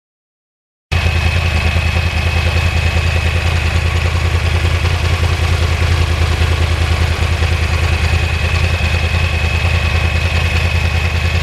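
Yamaha R1 Crossplane's inline-four engine idling steadily, with a fast even low pulse and a thin steady high whine over it. It starts abruptly about a second in.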